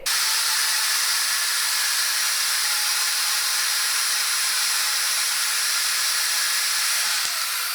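WEN 94396 portable metal bandsaw running and cutting through fiberglass rebar: a steady hissing rasp that stops suddenly near the end.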